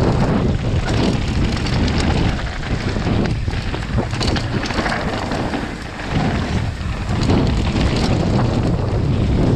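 Mountain bike running fast down a rocky downhill trail: tyres rolling over loose stones and gravel, with wind buffeting the camera microphone.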